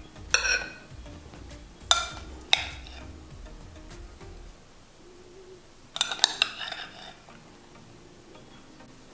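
A metal spoon clinking on a ceramic plate as salad is spooned onto it: a few sharp clinks in the first three seconds, then a quick cluster of them about six seconds in.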